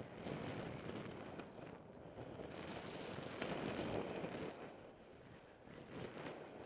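Wind buffeting the microphone of a camera moving fast downhill, with a rolling rumble that swells and fades and a few sharp clicks.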